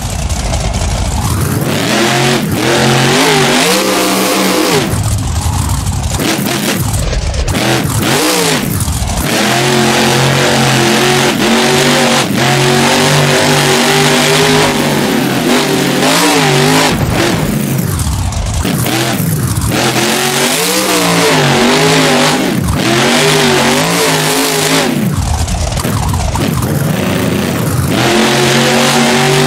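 Monster truck's supercharged V8 engine revving hard. Its pitch climbs and drops again and again as the throttle is worked.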